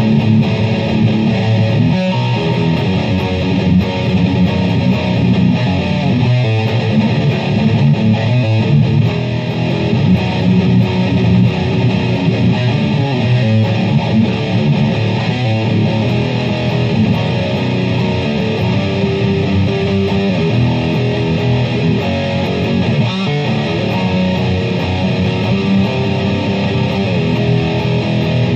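Explorer-style solid-body electric guitar playing a riff, steady and unbroken throughout.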